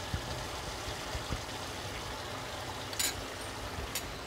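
Chicken pieces simmering in the watery juices they have released in a kadai, a steady sizzle of bubbling liquid. A spoon clinks against the pan twice, about three and four seconds in.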